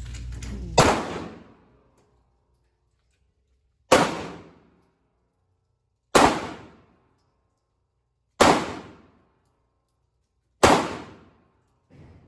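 Five single gunshots at an indoor shooting range, about two seconds apart, each a sharp crack that dies away in a short echo.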